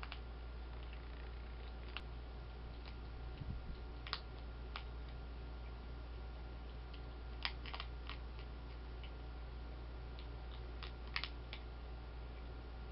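Skunk crunching dry cat food kibble: sharp, irregular crunches a second or few apart, sometimes two or three close together, over a steady low hum.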